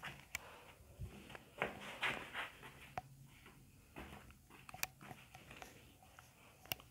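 Faint, irregular footsteps on a tunnel floor, with small knocks and rustles.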